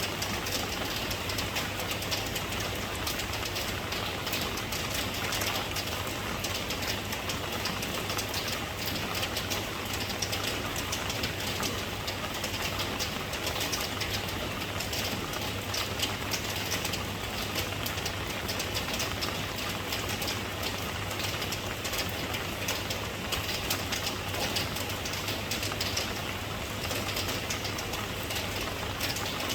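Steady rain falling: an even hiss packed with the close patter of individual drops, over a constant low hum.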